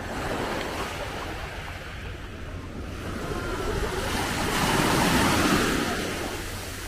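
Mediterranean surf washing on the beach: a steady hiss of water that swells to its loudest about five seconds in as a wave breaks, then fades.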